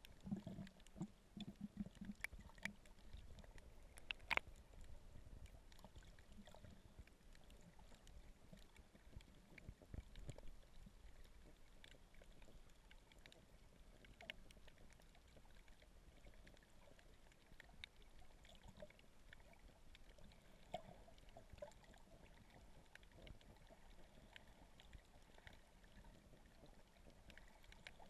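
Near silence: faint muffled underwater water noise with scattered small clicks and ticks, a sharper click about four seconds in, and brief low rumbles in the first couple of seconds and again around ten seconds.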